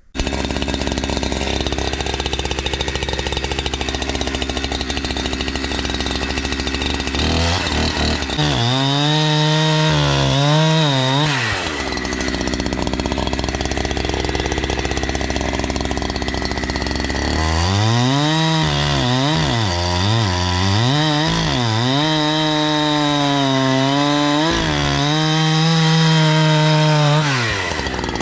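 Two-stroke chainsaw idling, then revved up for a few seconds and let back down to idle. It then revs up again for about ten seconds, its pitch repeatedly dipping and recovering as the chain bites into firewood, before dropping back to idle near the end.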